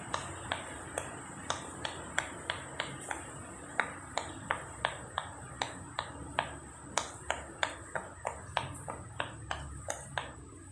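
Silicone Pop It fidget toy bubbles being pressed through one after another, a steady run of sharp little pops about three a second.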